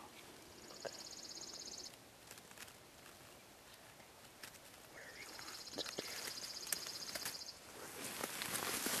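A small songbird's rapid, high trill, heard twice: once briefly about half a second in and again, longer, about five seconds in. Rustling builds near the end.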